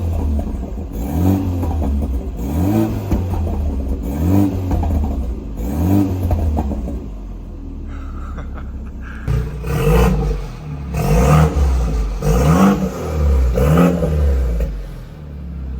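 BMW 428i engine through an AWE axle-back exhaust, free-revved in two series of about four quick throttle blips, each rising and falling back, with a short steady idle between the series and again near the end.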